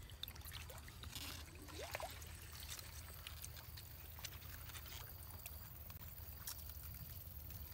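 Faint sloshing and trickling of shallow ditch water stirred by hands groping into a fish burrow under the bank, with scattered small clicks.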